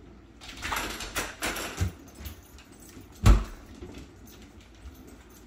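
A kitchen door is rattled and swung open: a few scraping, rattling strokes, then a heavy thump about three seconds in.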